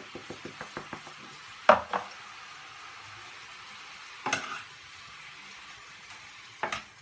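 Minced meat and vegetables frying in a pan with a steady sizzling hiss while they are stirred, with light ticks in the first second and a half and three sharp knocks of the utensil against the pan, the loudest just before 2 seconds in.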